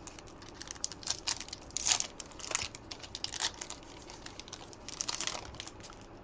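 A stack of rugby league trading cards being handled and flicked through by hand: irregular papery rustles and light card-on-card clicks, busiest in the first half and again about five seconds in.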